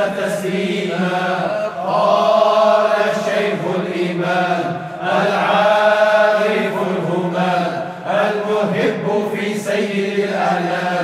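Islamic dhikr chanting: voices intoning devotional phrases in long held lines of about three seconds each, with short breaks between them.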